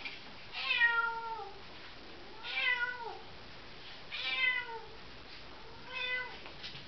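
A domestic cat meowing four times, drawn-out meows about every one and a half to two seconds, each sliding down in pitch at its end; the first is the loudest and the last the shortest.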